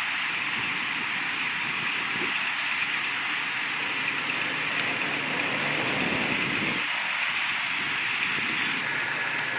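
A vehicle engine running steadily at idle, a constant mechanical noise with thin high whines running through it.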